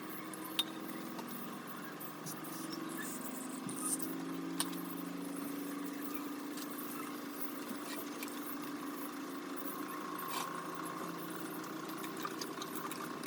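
Steady low hum of a running motor, drifting slightly in pitch, with a few light clicks.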